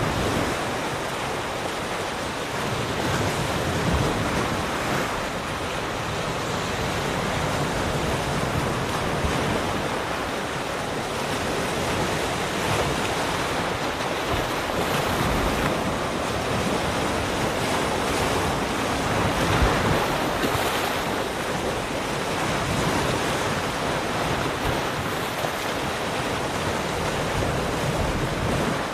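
Ocean surf: waves breaking and washing in a continuous rush that swells and eases every few seconds, with some wind on the microphone.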